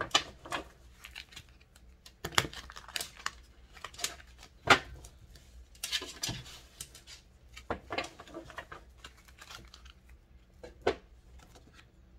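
Irregular rustles and sharp clicks of small objects being handled on a surface, with one louder click near the middle.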